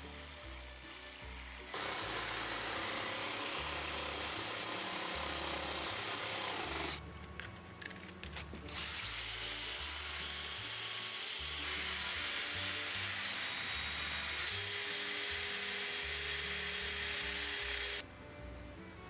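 Cordless drill spinning a wooden dowel, its motor whining high over a rasping hiss as the wood is shaved and then sanded. The whine drops in pitch partway through and rises again, and the drilling pauses briefly about seven seconds in before stopping abruptly near the end. Background music with a steady beat plays throughout.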